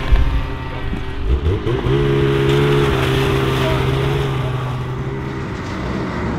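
Snowmobile engine revving up about a second and a half in, then running at a steady pitch under way, easing off slightly near the end.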